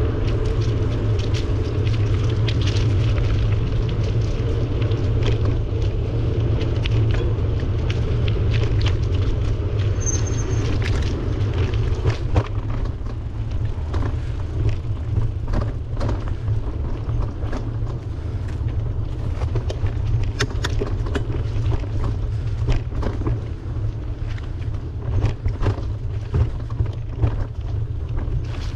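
Steady low rumble of wind buffeting a bike-mounted microphone over tyre and road noise during a bicycle ride, with scattered sharp clicks and rattles that come more often from about twelve seconds in. A short high beep sounds once about ten seconds in.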